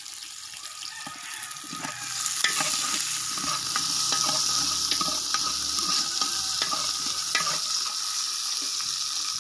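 Garlic and onion sautéing in oil in a large metal pot, sizzling, while a metal ladle scrapes and taps against the pot as they are stirred. The sizzle gets louder about two seconds in.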